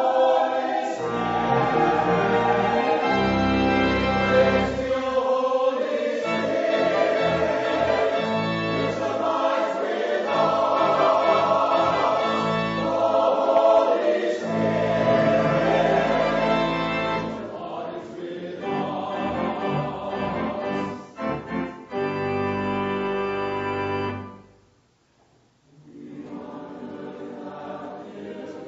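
Choir singing in sustained, overlapping parts. The music breaks off to near silence about 25 seconds in, then resumes more softly.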